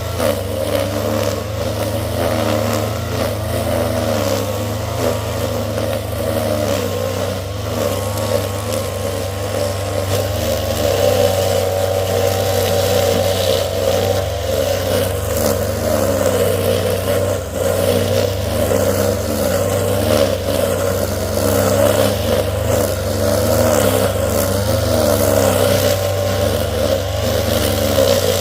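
An engine running steadily, its pitch wavering a little up and down.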